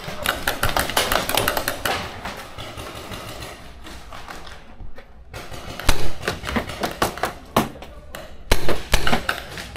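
Paintball marker firing: a run of sharp pops, loudest and most spaced out in the second half, over a clatter of fainter clicks and knocks.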